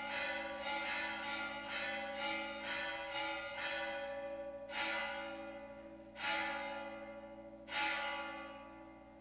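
Bell ringing: a run of quick strikes about two a second, then three louder, slower strikes, each ringing on and fading out.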